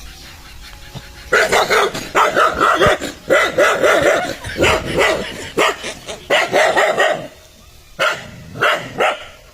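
A dog barking angrily in a fast, unbroken run of barks starting about a second in, then a short pause and two or three more barks near the end.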